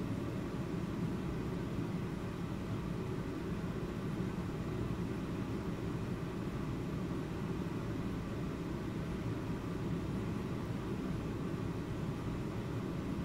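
Steady low rumbling background noise with no distinct events: room ambience.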